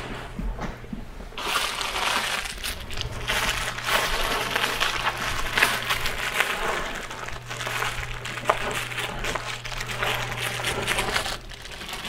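Plastic bubble wrap crinkling and crackling as it is unwrapped by hand from a brass-cased clock weight. The crackle starts about a second in and keeps on almost to the end.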